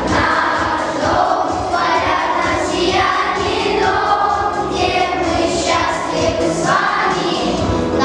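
A children's choir singing together over musical accompaniment.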